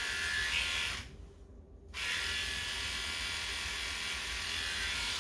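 Electric dog grooming clippers buzzing steadily as they cut a Bedlington terrier's coat on the head. The buzz stops about a second in and starts again a second later.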